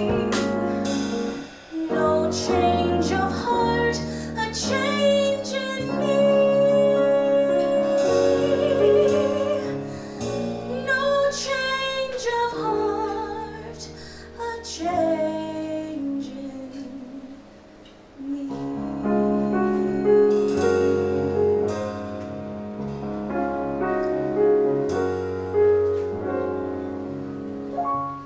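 A woman singing a musical-theatre ballad live, holding long notes with vibrato, over a small band's accompaniment. The song builds to its final bars near the end.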